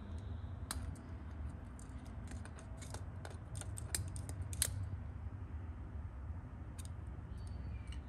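Steel digital calipers being slid and seated against the metal of a Club Car Precedent front wheel hub: a scatter of light metallic clicks and scrapes from about one to five seconds in, over a faint low hum.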